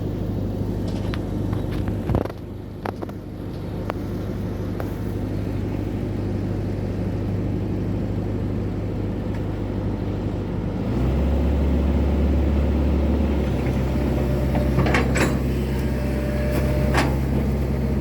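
Hydraulic excavator's diesel engine running steadily. About eleven seconds in, its hum drops to a deeper, louder note as it takes on load, and a few short knocks come near the end.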